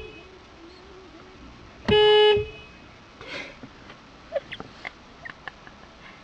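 Car horn honking once, a short steady blast of about half a second, about two seconds in.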